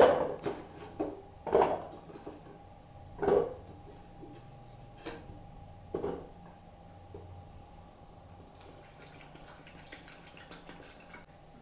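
Raw potato chunks dropped one at a time into a stainless steel pot, each landing with a knock and a short metallic ring, the first the loudest. Near the end, water is poured into the pot with a faint steady splashing.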